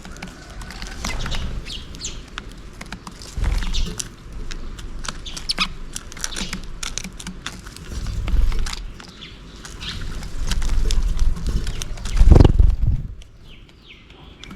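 House sparrows chirping over and over in short, quick chirps, with loud low rumbles coming and going, the loudest about twelve seconds in.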